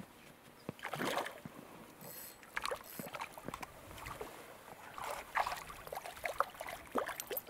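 Water splashing in short, irregular bursts as a small hooked trout thrashes in the shallows at the lake's edge.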